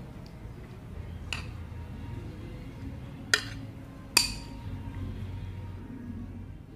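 Three sharp clinks of kitchenware knocked together, about a second apart at first and then in quick succession, the last the loudest with a brief ring, over a low steady hum.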